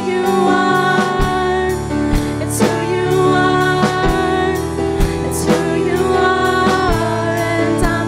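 Live worship band: two women singing a slow praise song over keyboard and a drum kit keeping a steady beat.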